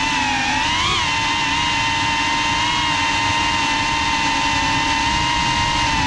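Geprc FPV quadcopter's brushless motors and propellers whining steadily, the pitch rising briefly about a second in as the throttle changes.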